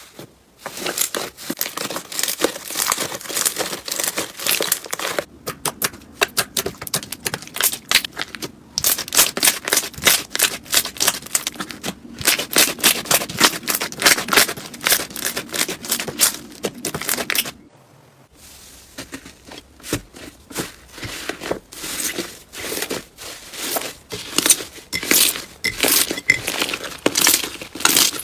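Hands squeezing and pressing slime, giving dense runs of crackling, popping clicks. There are short breaks, and a longer quiet gap about eighteen seconds in.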